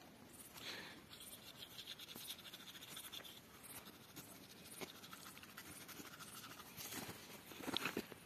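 Faint scratchy scrubbing of a toothbrush on teeth in quick strokes, with a few louder scuffs near the end.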